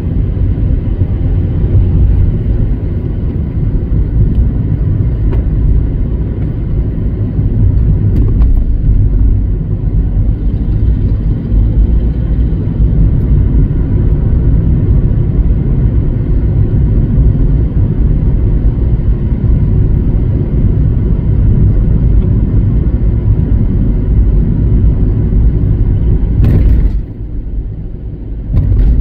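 Steady low rumble of a moving car, tyre and engine noise, dipping briefly near the end.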